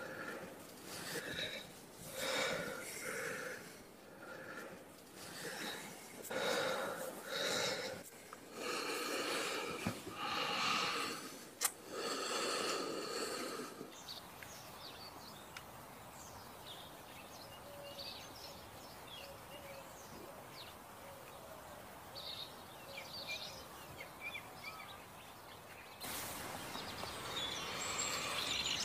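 Heavy breathing and soft sighs from two people, in pulses about a second apart. About halfway through it gives way to a quiet stretch with faint scattered bird chirps. Near the end a louder outdoor ambience of steady rushing noise with birds comes in.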